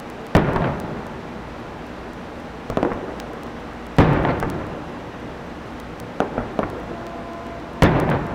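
Aerial firework shells bursting: four loud booms a second or more apart, each trailing off in a rolling echo, with two lighter pops shortly before the last boom.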